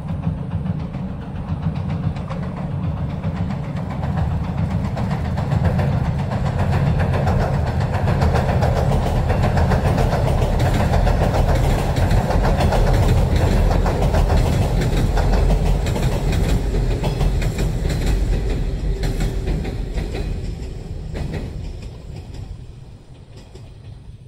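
A JR 115 series electric multiple unit running across a steel girder railway bridge, with a dense rumble and rattle of wheels and bridge. The sound swells to its loudest in the middle and fades away over the last few seconds as the train clears the bridge.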